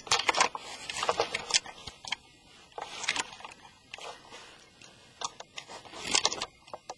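Handling sounds: foil packets crinkling and light plastic clicks and scrapes as the packets are propped up on a plastic Lego baseplate, in several short irregular bursts.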